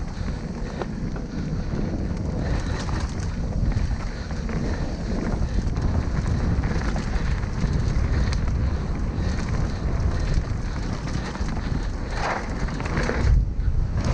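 Wind buffeting the microphone as a mountain bike rolls along a dirt trail, a steady rushing rumble.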